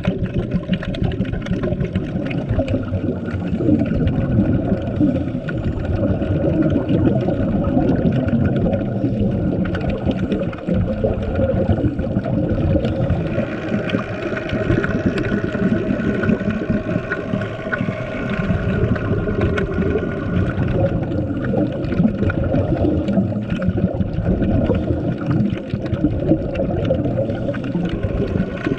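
Underwater ambience: a continuous muffled rumble and gurgle of moving water, picked up underwater.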